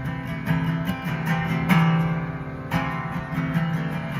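Acoustic guitar strummed in a steady rhythm between sung lines of a song, with a bass line underneath.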